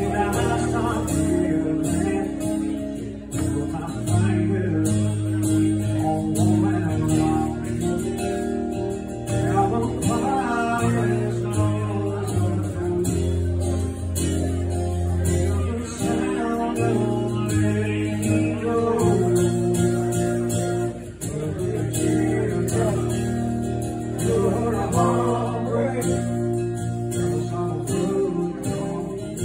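A man singing live while strumming an acoustic guitar.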